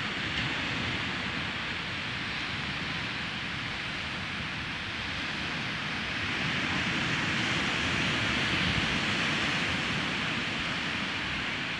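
Small waves breaking and washing up a sandy beach, a steady rush of surf that grows louder for a few seconds past the middle.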